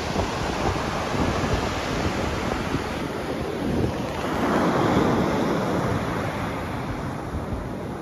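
Sea waves washing onto a pebble beach, a steady surf that swells to its loudest about halfway through.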